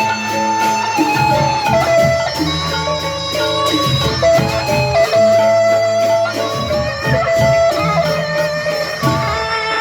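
Loud instrumental ensemble music: a sustained high melody line over a lower moving part and steady percussion strokes, played as the opening piece (tabuh pembuka).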